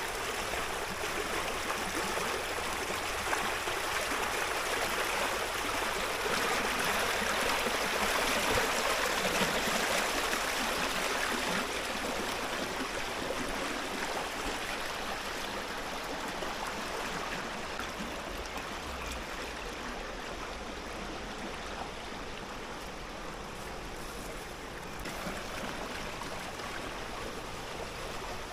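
Water rushing and splashing through a wooden, chambered fish ladder and down into its stone-lined outflow channel: a steady rush that swells a few seconds in and then slowly grows quieter.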